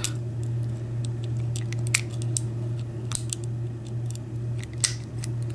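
Small metallic clicks and scrapes from a Peterson #4 hook pick working the pins inside a Master Lock combination padlock's keyway under tension. The clicks come irregularly, spaced a fraction of a second to a second apart, over a steady low hum.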